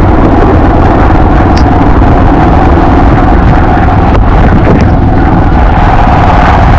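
Motorcycle engine running during a ride, mixed with loud, steady wind rushing over the microphone.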